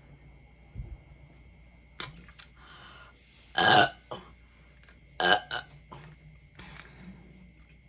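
A woman belching loudly twice, a long burp about three and a half seconds in and a shorter one about a second and a half later, with a few small clicks and knocks around them. The burps are brought up by drinking Sprite, a carbonated soda.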